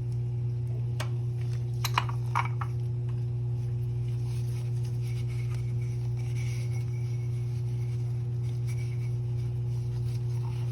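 A steady low hum throughout, with a few light clicks and taps about one to two and a half seconds in, from small oil-filter parts being handled.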